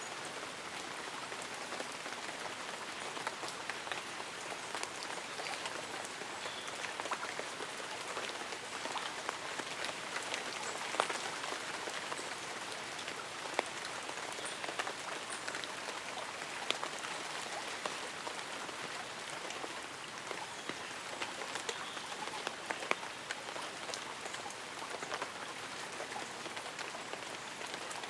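Light rain falling on tree leaves and an umbrella: a steady patter of many small drops, with a few louder single drops striking now and then.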